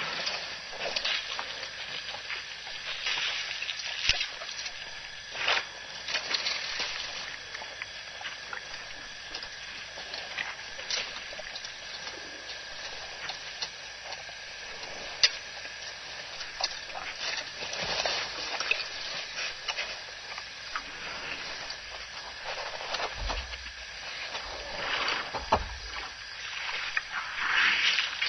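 Water sloshing and splashing at a waterhole as African elephants drink and move along the edge, with scattered small clicks over a steady high-pitched whine. A few low thumps come near the end.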